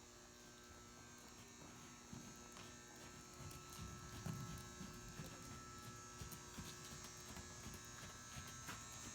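Near silence with a faint, steady electrical hum and buzz.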